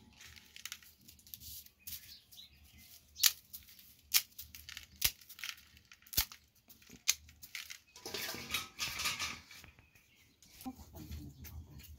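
Dry spaghetti being snapped by hand into a plastic basin: a string of single sharp snaps, then a dense burst of crackling and rustling as handfuls of the broken strands are crumbled.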